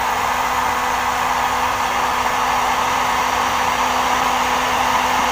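Electric heat gun blowing steadily with an even airy rush and a faint motor hum, softening the end of a half-inch plastic pipe.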